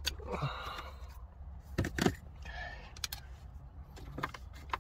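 Plastic dashboard trim and hazard switch of a Honda Civic being handled and pried: a short scraping rustle about half a second in, then scattered sharp clicks and knocks, over a low steady hum.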